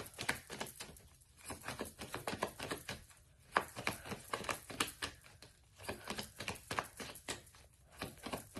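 Tarot cards being handled and shuffled: a run of quick, light clicks and slaps in irregular clusters of several a second, with short pauses.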